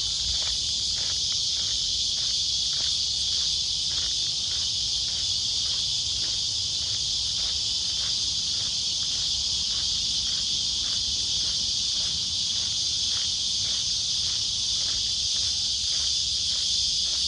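Dense, steady, high-pitched insect chorus, like crickets or cicadas, with a fainter regular pulsing of about three ticks a second beneath it.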